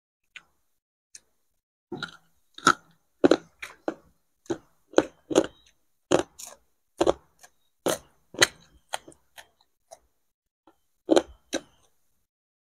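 Close-up crunching of crispy fried food being bitten and chewed: a run of sharp, separate crunches, two or three a second, starting about two seconds in and pausing briefly near the end.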